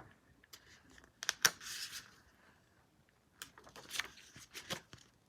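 Paper picture book being handled and its pages turned: a few soft clicks and taps, with a brief paper rustle about a second and a half in.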